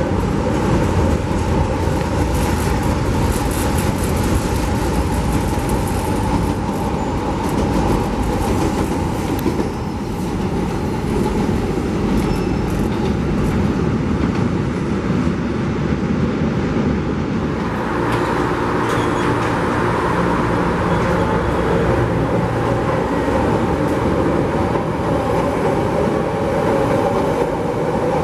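Chicago 'L' rapid-transit trains running on elevated steel track: a continuous rumble and rail noise. About two-thirds through, a steady low hum joins in as a train comes close.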